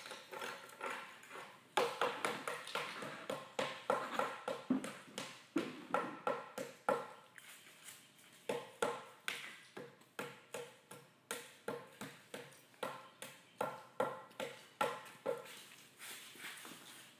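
Hand tool, likely a hammer, striking again and again, about two blows a second with a short metallic ring, breaking the form away from the edge of a freshly cast concrete manhole lid. The blows come in runs with brief pauses.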